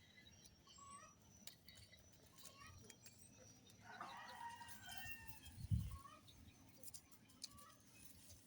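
A rooster crowing once, faintly, about four seconds in, with small birds chirping now and then. A short, dull low thump comes just before the crow ends and is the loudest sound.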